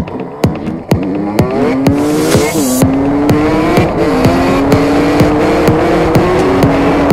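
125 cc two-stroke dirt bike accelerating hard through the gears, its engine note climbing and dropping back at each of three upshifts. Under it runs electronic dance music with a steady kick-drum beat.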